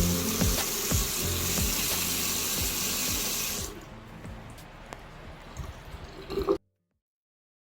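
Water running from a washbasin faucet into the basin, turned off about halfway through; a few faint knocks follow before the sound cuts off.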